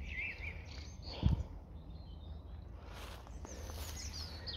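Songbirds chirping over a steady low rumble, with one short thump about a second in.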